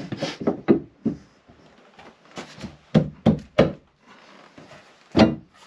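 A heavy wooden boat floor timber being shifted and knocked into place in the bilge: a series of dull wooden knocks and thumps, three in quick succession in the middle and a sharp one near the end.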